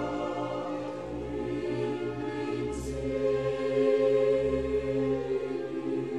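Background music: a slow orchestral piece with sustained choral voices over a low note that pulses about every second and a half.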